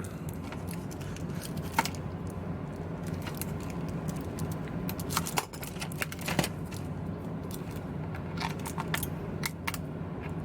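Scattered sharp clicks and crackles as a tablet's glued glass panel is pried off and its adhesive gives way, over a steady low hum.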